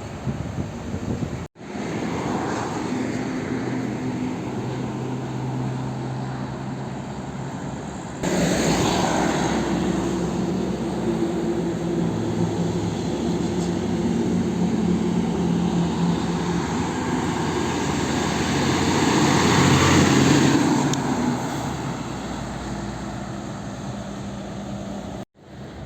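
Heavy diesel truck engines running on a road. One truck swells louder as it passes close, about twenty seconds in, and then fades away.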